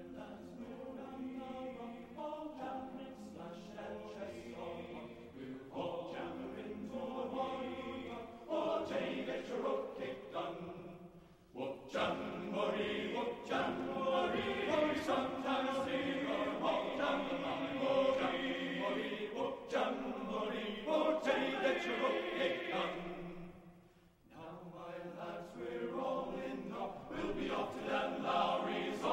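Mixed choir singing a sea shanty in many parts. It pauses briefly about five seconds before the end, then comes back in.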